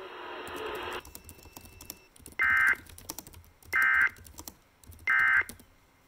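Emergency Alert System end-of-message signal from a weather-radio broadcast: three short, loud bursts of buzzing data tones about a second and a half apart, marking the end of the severe thunderstorm warning. A second of radio hiss comes before the first burst.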